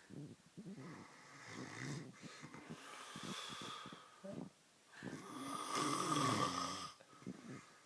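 A man snoring heavily, a run of rough, juddering snores one after another, the longest and loudest about five seconds in.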